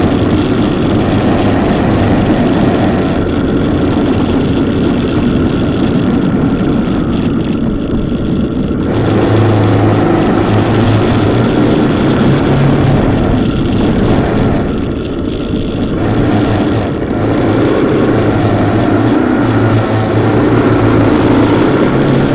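Motorcycle engine running while riding, its note shifting up and down a few times with the throttle, under a constant rushing wind and road noise on the bike-mounted camera's microphone.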